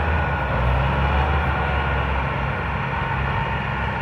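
Tractor diesel engine running steadily under heavy load, labouring to pull a trolley heaped with sugarcane.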